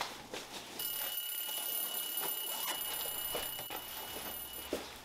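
A steady, high-pitched electronic tone, like a held beep, starts about a second in, holds for about four seconds and cuts off suddenly. Faint scattered clicks sound under it.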